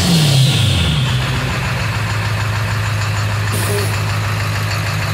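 Ford 7.3 Power Stroke V8 turbo-diesel with a Holset HX50 turbocharger settling back from a rev, its pitch falling during the first second or so, then idling steadily.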